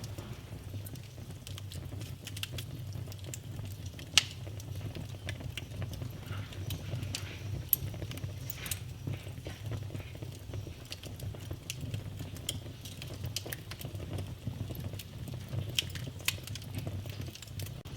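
Wood fire burning in a fireplace, crackling with irregular sharp pops over a low steady rumble of the flames; the loudest pops come about four and eight seconds in.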